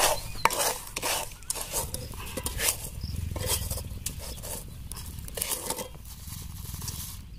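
A wire-mesh skimmer scraping through hot roasting sand in an iron wok and being shaken, with sand sifting through the mesh as roasted black chickpeas are lifted out. The scraping and rustling come irregularly.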